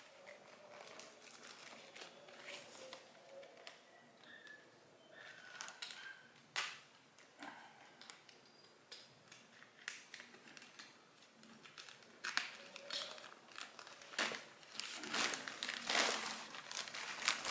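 Crinkling and rustling of a plastic-wrapped shipping package being handled, with scattered sharp crackles and taps that come thicker in the last few seconds.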